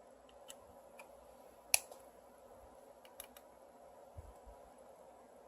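A few faint, sharp clicks over quiet room noise, the loudest just under two seconds in and another a little after three seconds.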